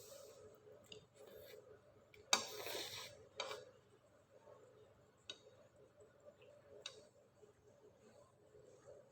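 Quiet eating sounds: a short noisy burst just over two seconds in and another about a second later, then two sharp clicks of a utensil against dishware.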